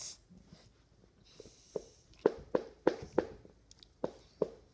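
A child gulping soda from a can: a run of short swallowing knocks, about three a second, then a pause and two more near the end.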